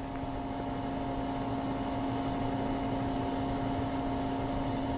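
Steady hum with one constant low tone from an energized Leadshine 863S68H stepper motor and its drive on the mill's Z axis, unchanging throughout, with a couple of faint small clicks.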